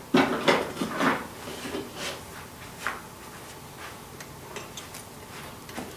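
Small clicks and knocks of hand work on an ATV's thumb-throttle housing as the throttle cable is fitted back into it: a quick cluster of sharp clicks in the first second or so, then a few lighter, scattered ticks.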